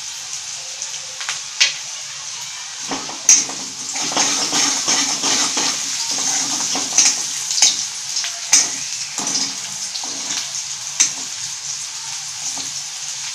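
Chopped onion sizzling in hot oil in a steel kadhai, frying toward golden brown, stirred with a steel spatula that scrapes and clinks against the pan several times.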